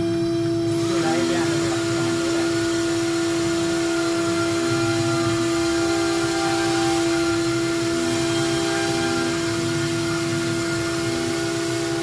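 CNC router spindle carving a wooden log turned on its 4-axis rotary, a steady machine hum. Just under a second in, the noise of the bit cutting wood and a very high steady whine come in and keep on.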